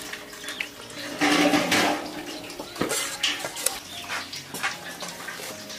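River snails being scrubbed in a basin of water: water sloshing with the clatter and scrape of shells, loudest about a second in.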